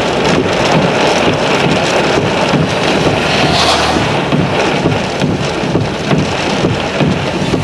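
Strong thunderstorm wind gusts blowing over the microphone: a loud, unbroken rushing with uneven low buffeting.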